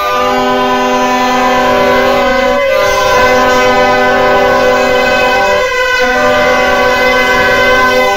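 Several plastic toy trumpets (vuvuzela-style party horns) blown at once in long held blasts, each at its own steady pitch, so they sound as a loud clashing chord. The lowest horn stops for a breath twice, a little over two and a half seconds in and again near six seconds, then starts again.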